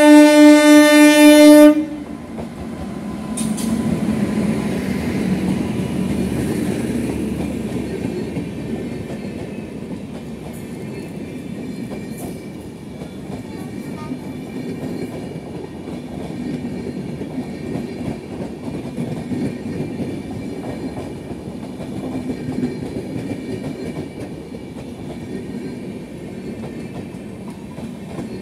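WAP-7 electric locomotive's horn sounding one loud blast that cuts off about two seconds in. The Shatabdi Express coaches then rumble past, their wheels clacking over the rail joints.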